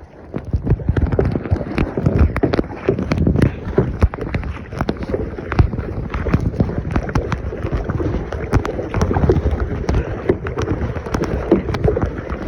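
Irregular clattering knocks and rustling with wind on the microphone, typical of paddling a kayak with the camera close to the paddle and hull.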